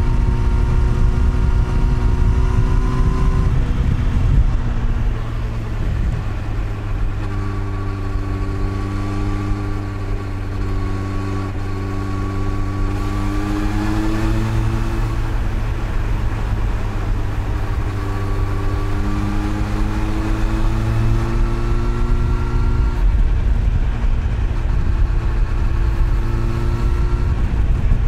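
Honda CBR1000RR SC59's inline-four engine under way, heard through the rider's helmet with wind rush over it. The engine's pitch climbs in several long pulls and drops back between them.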